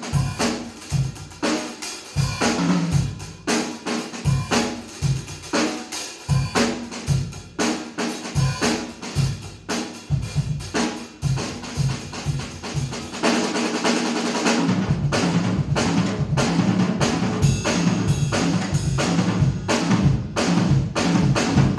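Acoustic drum kit played live: bass drum, snare and cymbals in a steady beat. About two-thirds of the way through it turns into a dense stretch of fast strokes under a continuous cymbal wash.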